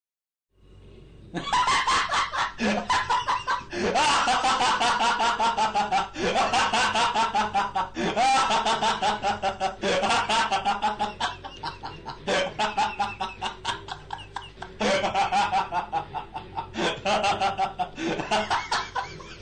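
Laughter sound effect: the high-pitched cartoon laughter of the Upin & Ipin twins, rapid repeated 'ha-ha' pulses that start about a second in and go on with only brief breaths between bursts.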